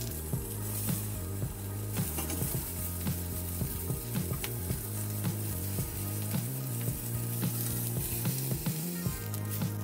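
Salmon head sizzling on a hot cast-iron grill pan, a steady hiss broken by many small crackles and pops.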